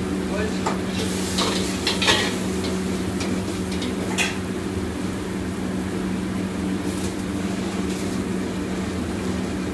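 Commercial gas wok station: a steady low drone from the burner and kitchen ventilation, with a hiss of sizzling and scattered metal clinks and scrapes of pots and utensils. The sharpest clinks come about two and four seconds in.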